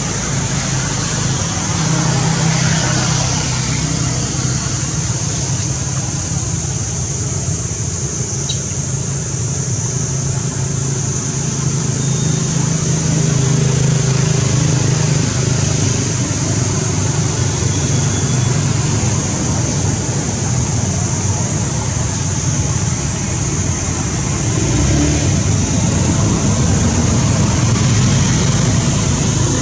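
Steady outdoor background noise: a constant high-pitched hiss or drone over a low rumble, with no distinct calls or knocks.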